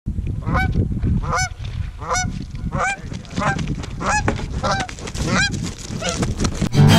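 Goose honking: a quick run of about eight honks, roughly one every three-quarters of a second, over a steady low rumbling noise. A sharp thump comes near the end.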